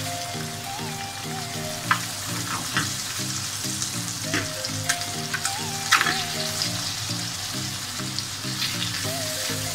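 Eggs and chopped tomatoes sizzling in a nonstick frying pan as they are stirred with a silicone spatula, with a few sharp knocks and scrapes of the spatula on the pan; the loudest knock comes about six seconds in.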